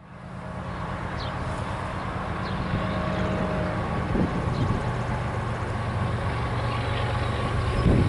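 Diesel locomotives of an approaching freight train, a low steady engine rumble that slowly grows louder. A few faint bird chirps sound over it.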